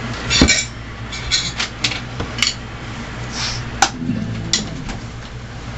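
Hard objects being handled, a few scattered clinks and clatters at irregular intervals over a low steady hum.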